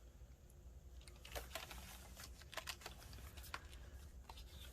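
Pages, tags and paper trims of a handmade journal being handled and turned: faint irregular small clicks and paper rustles, starting about a second in.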